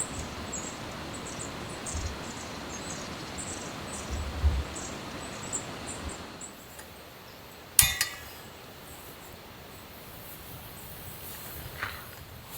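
Outdoor ambience with a steady hiss that eases off about six seconds in, faint high chirps, and one sharp clink with a short ring about eight seconds in, then a smaller click near the end.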